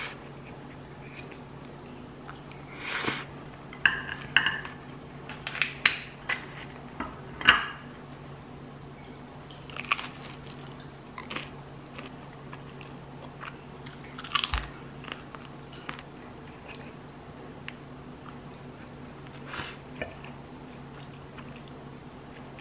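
A person eating at a table: crunchy bites and cutlery clinking against a ceramic plate in short, scattered bursts, busiest in the first half, over a steady low hum.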